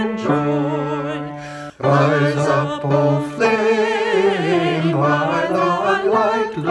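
A small group of men's and women's voices singing a round in parts, the higher voices with vibrato over held lower notes, with a short break in the singing just under two seconds in.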